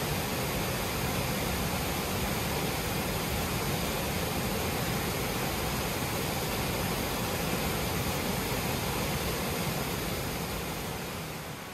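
Steady roar of rushing whitewater: an even, hiss-like rush with no distinct events, easing slightly near the end.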